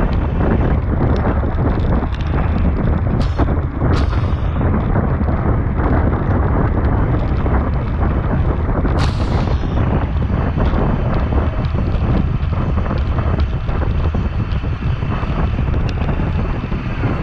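Wind buffeting an action camera's microphone on a racing bicycle at speed, a steady heavy rumble. Three sharp clicks or knocks come through it, about 3 and 4 seconds in and again near 9 seconds.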